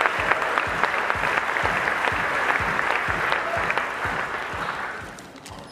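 An audience applauding, the clapping dying away about five seconds in.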